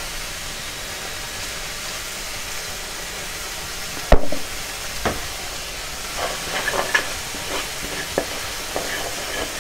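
Food sizzling in a frying pan on the hob, a steady hiss. A sharp clack comes about four seconds in, another a second later, then a run of short knocks and scrapes as a utensil stirs the pan.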